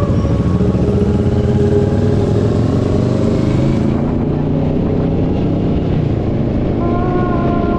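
Motorcycle engine running on the move, its pitch shifting a little with the throttle. Steady music tones come back in about seven seconds in.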